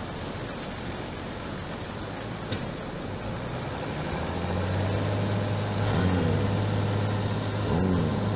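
Farm tractor's diesel engine running under load as it pushes a boat trailer toward the surf. It grows louder from about halfway through, and its pitch rises and falls twice near the end, over a steady wash of surf.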